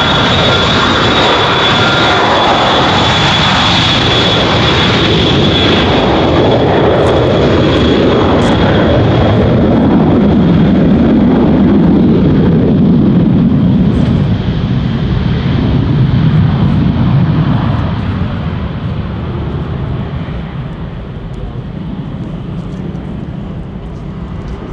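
Boeing VC-137C (707) jet engines, Pratt & Whitney TF33 (JT3D) turbofans, loud as the aircraft rolls past at speed on the runway, with a steady high fan whine. The whine fades out first, then the engine noise drops in pitch as the aircraft goes by and dies away over the last several seconds.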